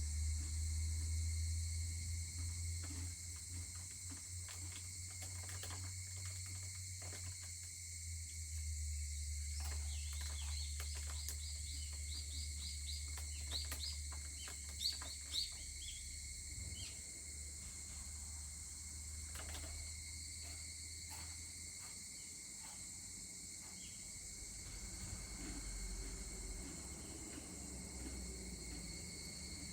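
A steady chorus of crickets and other insects, with a quick series of short high chirps running for about five seconds near the middle. Scattered faint clicks and a low hum lie underneath, the hum fading out about two-thirds through.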